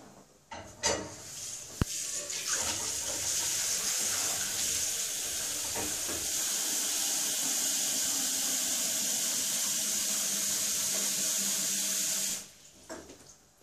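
Kitchen tap running water into an enamelled cooking pot held in the sink: a steady rush of water that stops suddenly near the end. A short knock comes just before the water starts.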